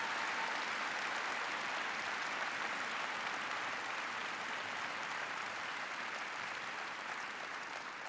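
A large audience applauding, the applause slowly dying away.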